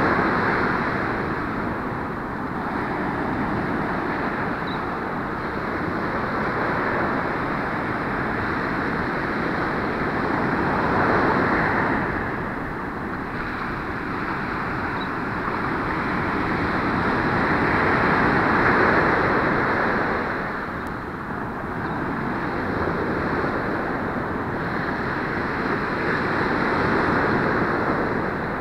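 Ocean surf breaking and washing up a sandy beach: a steady rush of water that swells louder about every eight seconds as each wave comes in.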